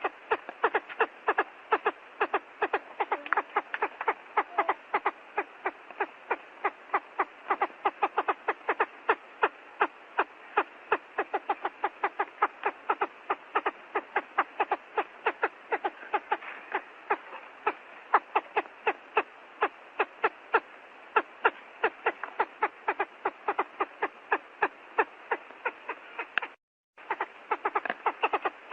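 Quail calling: a rapid, steady train of short clicking pulses, about four or five a second, with one brief break near the end.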